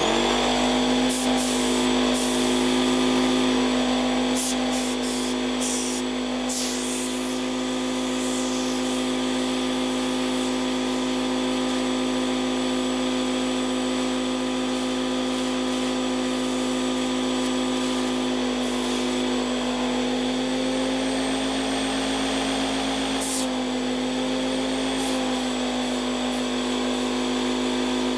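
Parkside PKZ 80 C5 compact air pump's piston compressor switching on abruptly and running continuously with a steady, loud mechanical hum. Its pitch shifts slightly a few times, and a few short clicks and hissy bursts sit on top.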